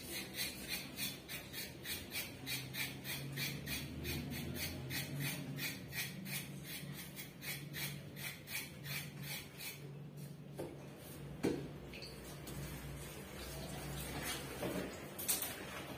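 Quick, even scraping strokes at a kitchen sink, about four a second, stopping about ten seconds in; then a couple of sharp knocks of kitchenware.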